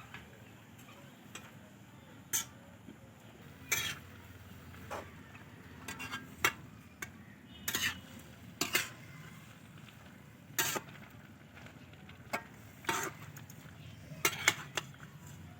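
A cooking utensil stirring food in a pan, scraping and knocking against it in irregular clinks, over a faint steady hiss.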